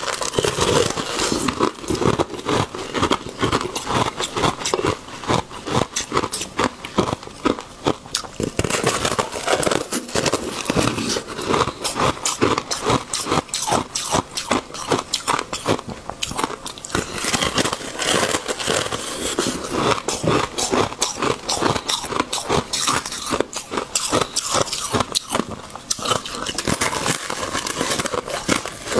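Thin sheet of ice being bitten and chewed close up: a near-continuous run of sharp crunches, snaps and crackles as the teeth break through it.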